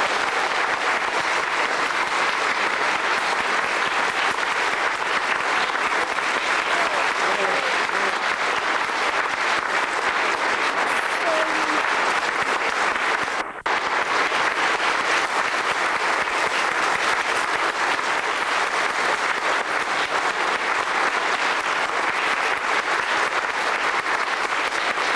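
Concert audience applauding steadily after a violin and piano performance, with one split-second gap about halfway through.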